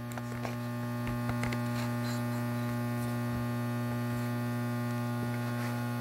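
Steady electric hum from the ProtoTrak TRM CNC bed mill's axis drive motors as an axis is jogged. It swells a little over the first second, then holds even.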